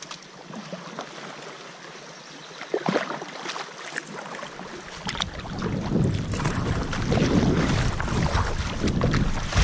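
Creek water splashing around a kayak's hull, with a few sharper splashes near the start. About halfway through it swells into a louder, steady rush with a low rumble as the kayak runs into a shallow riffle.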